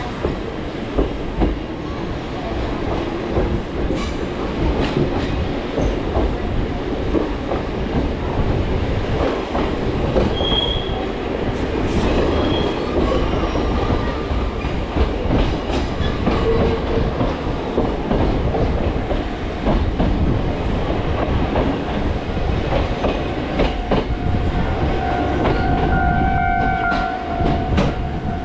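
Choshi Electric Railway train running on the line, its wheels clacking over the rail joints, heard through open carriage windows. Near the end there is a short high squeal from the wheels.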